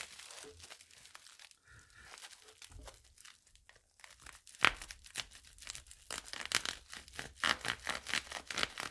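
Bubble wrap crinkling and crackling as it is pulled off by hand: scattered crackles, sparse at first and denser from about halfway in.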